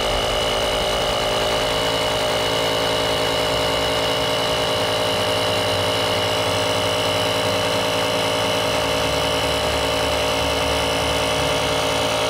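Portable air compressor built into a JF.EGWO 3000A jump starter running steadily, pumping up a car tyre toward 27 PSI. A steady high whine sits over the motor's hum.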